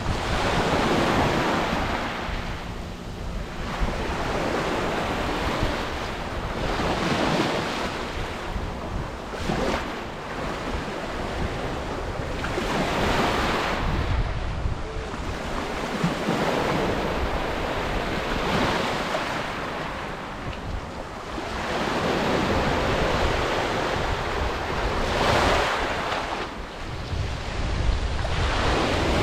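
Black Sea surf breaking on the beach, one wave washing in about every three seconds, with wind rumbling on the microphone.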